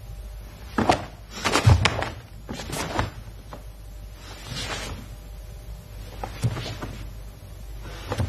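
Karate gi snapping and bare feet stamping and sliding on a mat during a kata: a handful of sharp snaps and thumps. The loudest is a heavy stamp about two seconds in, and a softer swish comes midway.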